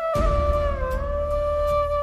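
Background music: a flute-like melody holding long notes that bend slightly in pitch, over a steady low bass.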